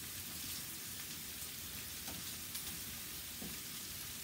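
Sliced sausage and shrimp frying in a skillet on a gas burner: a steady sizzle with occasional small pops.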